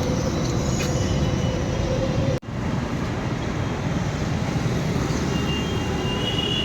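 Steady road traffic noise, with a sudden brief dropout about two and a half seconds in. A thin high-pitched whine comes in near the end.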